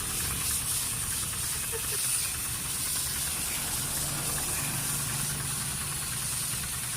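Steady hiss of water spraying from a hose, over a low, even motor hum.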